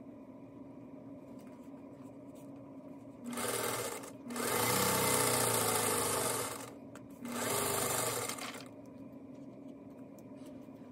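Singer Featherweight sewing machine stitching a seam in three runs: a short one about three seconds in, a longer one of about two and a half seconds, then a brief one, with the motor stopping between them.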